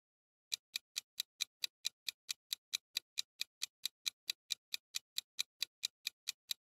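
Countdown timer sound effect: a steady run of evenly spaced clock-like ticks, about four to five a second, starting about half a second in and marking the time left to answer a quiz question.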